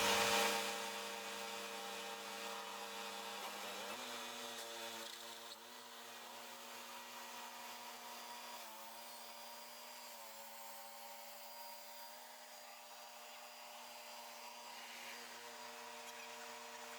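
Sawmill engine running steadily with a constant mechanical hum; its note changes about four seconds in and wavers slightly a few times afterwards.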